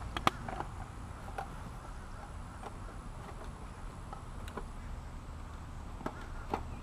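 Light handling sounds of gear being packed into a fabric backpack: a few small clicks and knocks at the start and again near the end, fairly faint, over a steady low outdoor rumble.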